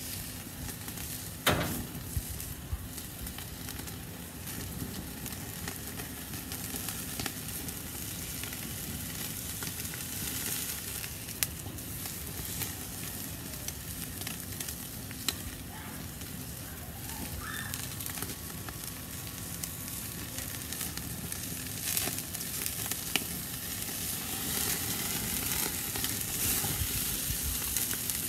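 Beef prime rib roast and rib bones sizzling on the grate of a charcoal kettle grill over very hot coals, with a few sharp clicks and pops.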